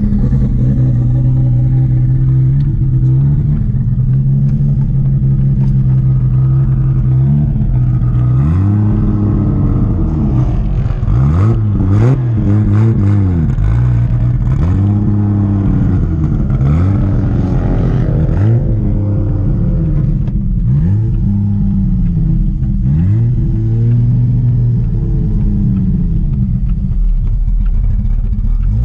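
Turbocharged Toyota 2JZ inline-six engine in a Nissan 240SX, running steadily at first and then revved up and dropping back over and over, with a few sharp cracks near the middle, before settling to a steady tone again near the end.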